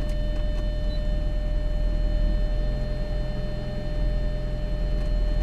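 Audi A4 idling with a steady low hum, with a thin, steady high-pitched whine over it.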